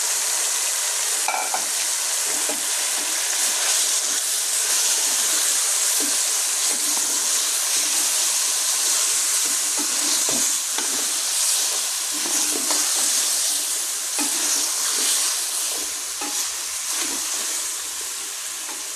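Raw chicken frying in hot oil in a pan with vegetables and spices, giving a steady sizzle, stirred with a spoon that scrapes and knocks now and then. The sizzle eases slightly near the end.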